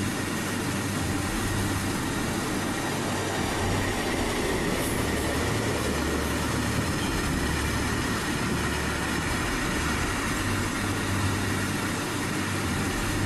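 Sheshnaag, a 2.8 km freight train of four trains coupled together, rolling steadily past a station platform: a continuous rumble of its wagons on the rails.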